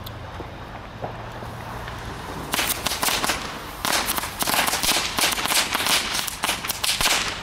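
A 40-piece string of Weco Lady Cracker firecrackers going off, a fast irregular chatter of small bangs starting about two and a half seconds in and running for about five seconds.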